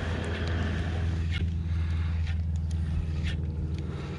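Steady low mechanical hum that swells, holds, then eases off near the end, with a few faint clicks over it.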